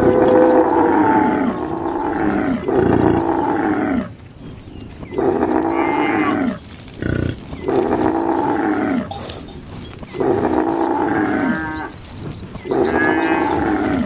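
Cattle mooing over and over: about seven long, loud moos, each sliding down in pitch, with short gaps between them.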